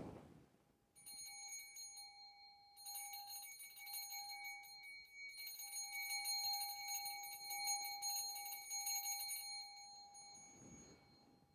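Altar bells (Sanctus bells) shaken and ringing in three bursts, rung at the elevation of the consecrated host.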